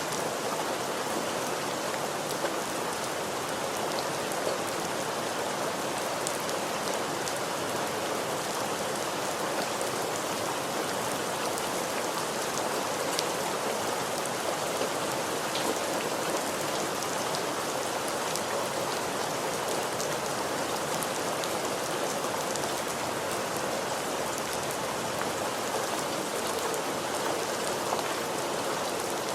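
Steady rainfall, an even hiss with many small drop ticks on a surface.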